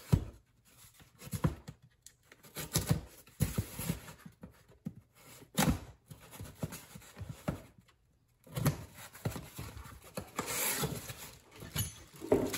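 Cardboard boxes being slit open with a utility knife and handled: packing tape cut and torn, cardboard scraping, and irregular knocks as the boxes are turned and set down.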